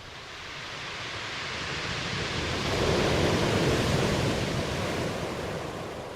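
Ocean waves: one wave swells and washes in, loudest about halfway through, then recedes.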